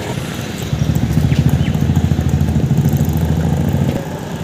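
A motorcycle engine running at idle, pulsing rapidly. It grows louder about a second in and drops back sharply near the end.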